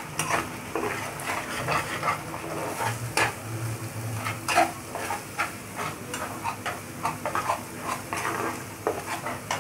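A spatula scraping and tapping irregularly against a frying pan as eggs and tomato are stirred quickly, over a light sizzle of frying.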